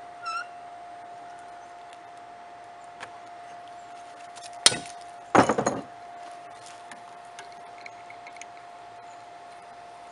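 Metal clinking from an adjustable wrench knocking against a red-hot railroad spike and the steel bench vise as the spike is twisted: one sharp clink about halfway through, then a quick rattle of several clinks.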